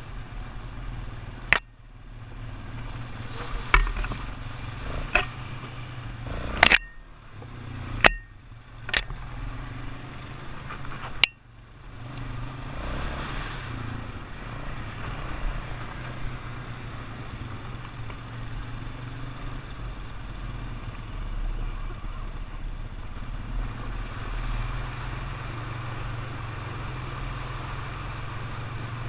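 ATV engine running steadily under a rush of noise, with about seven sharp knocks in the first half, some followed by brief dips in the sound.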